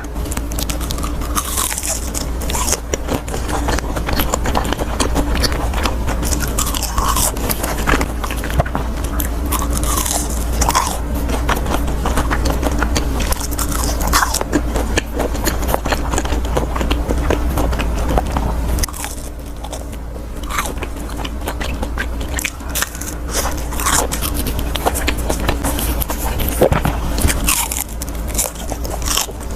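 Close-miked biting and chewing of crunchy fried food, a dense run of crisp crunches, over a steady low hum.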